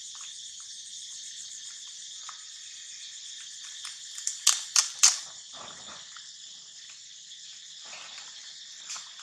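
Steady high-pitched chorus of insects in the trees, with a quick run of three sharp clicks about halfway through, followed by a short rustle.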